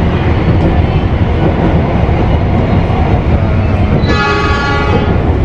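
Steady rumble of a passenger train running, heard from inside the coach, with the locomotive's horn sounding for about a second near the end.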